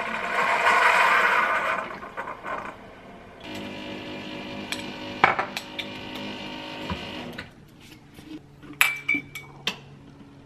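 Keurig single-cup coffee maker finishing a brew with a loud hissing sputter, then a quieter steady hum for a few seconds. Sharp clinks and clicks follow as the ceramic mug is set down and the plastic flip cap of a creamer bottle is snapped open.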